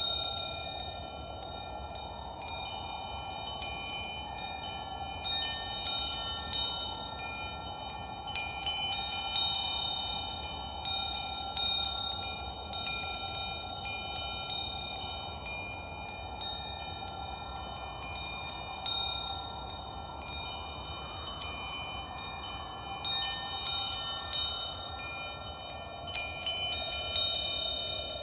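Wind chimes ringing: irregular clusters of strikes, the loudest about 8, 11.5 and 26 seconds in, each leaving clear high tones ringing on, over a steady background noise.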